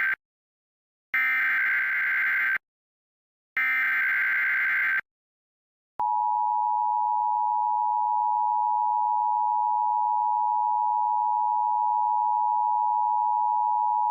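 Emergency Alert System activation: the end of one SAME header data burst, then two more identical bursts about a second apart. After a short gap comes the steady EAS two-tone attention signal for about eight seconds, cut off sharply; it signals that an emergency voice message follows.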